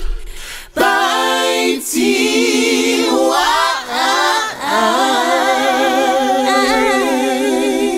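A cappella outro jingle: layered voices singing in harmony with vibrato, pausing briefly at the start and ending on a long held chord.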